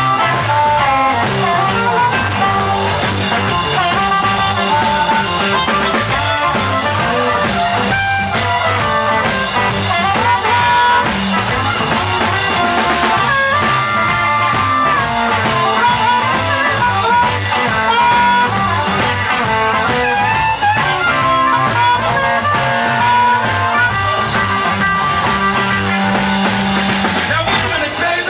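Live electric blues band in the 1950s Chicago style: an amplified harmonica wails and bends notes over electric guitar and drums.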